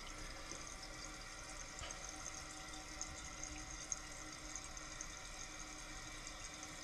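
Toilet tank refilling after a flush: water running in through the fill valve with a faint, steady hiss. One light tick about four seconds in.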